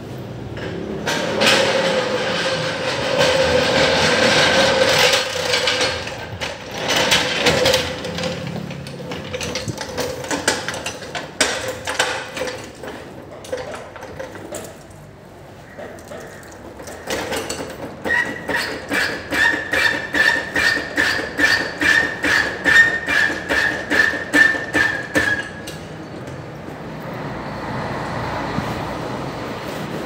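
Mechanic's tools working on a car: a tool runs steadily for about five seconds, then come scattered clicks and knocks, then an even pulsing of about four beats a second for some eight seconds.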